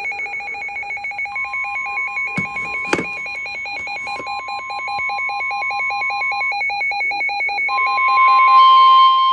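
Weather radio alarm sounding a warning alert: a fast warble of alternating high and low beeps, with the long steady weather-radio warning tone coming in about a second in, breaking off, then returning louder near the end. Two sharp clicks sound around the second to third second.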